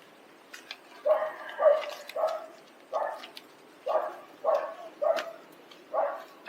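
A dog barking repeatedly, about eight short barks starting about a second in.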